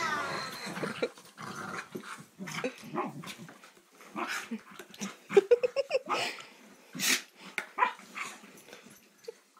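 Two dogs play-fighting, growling, with a quick run of short yips about five seconds in.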